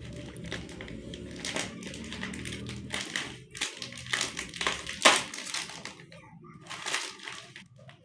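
Plastic snack packets being torn open and crinkled, a string of sharp crackles, the loudest about five seconds in.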